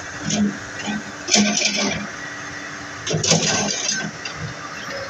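Komatsu PC200 excavator's diesel engine running steadily, with a few short bursts of hiss and metallic clinking over it.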